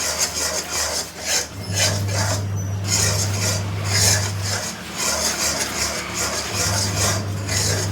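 A utensil scraping and stirring thick halwa around a pan in quick repeated rasping strokes. It is the stirring of besan, suji and atta halwa cooking down in ghee after the sugar syrup has gone in. A low steady hum sits underneath and drops out for a couple of seconds midway.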